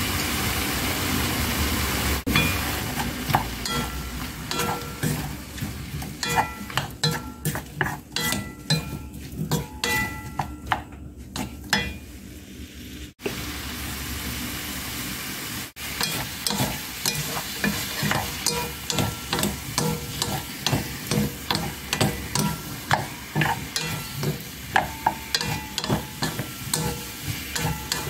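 Wooden spatula stirring and tossing sliced king oyster mushrooms and carrot in a frying pan: a run of quick knocks and scrapes against the pan over a light sizzle, dropping quieter for a couple of seconds just before the middle.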